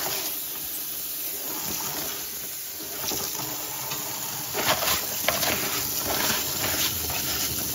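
Tap water running steadily in a sink onto a reusable oven liner as burnt-on pie boil-over is scraped off it, with a few short scrapes.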